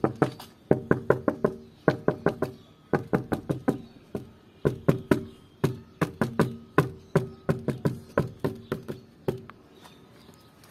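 Turkey-like fowl calling: a long run of sharp, clipped calls given in quick clusters of three or four, which stop about a second before the end.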